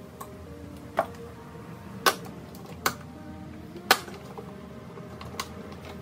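Sharp clicks and knocks from hands working hoses and clips loose on a car's engine air intake: four loud ones in the first four seconds and a few lighter taps.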